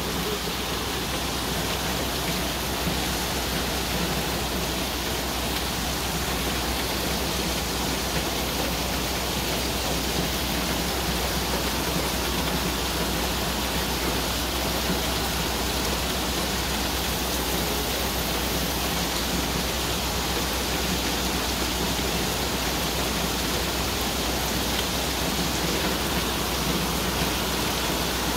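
Heavy tropical downpour: dense, steady rain hiss with no let-up, falling onto flooded ground.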